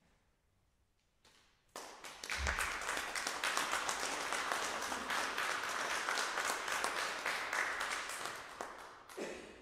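Small audience applauding. It starts about two seconds in after a brief silence and tapers off near the end.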